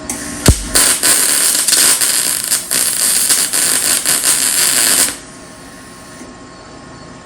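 MIG welder laying a stitch weld on a steel quarter panel: the arc crackles and sizzles for about four and a half seconds, opening with a sharp pop, then cuts off, leaving a low steady hum.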